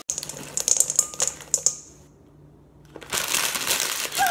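Scattered clicks and rattles, then after a short pause chocolate chips pouring from a plastic bag into a stainless steel pot: a dense patter of many small hard pieces for about a second near the end.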